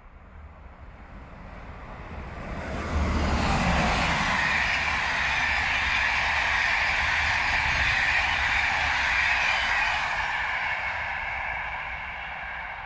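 Locomotive-hauled SNCF Intercités passenger train passing close by. It grows louder as it approaches, swells suddenly about three seconds in, and keeps up a steady rush of wheels on rail as the coaches go by. The noise fades over the last few seconds as the train recedes.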